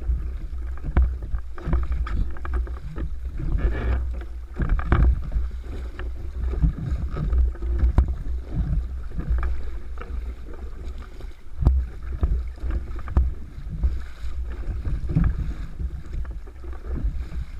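Water lapping and knocking against the hull of a fishing kayak, with steady wind noise on the microphone and frequent small knocks.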